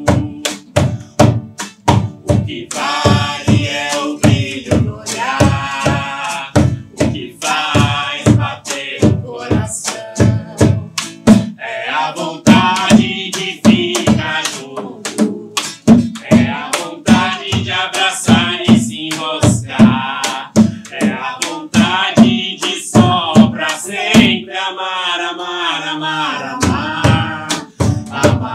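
A man and a woman singing a song in Portuguese, accompanied by a hand drum struck in a steady beat.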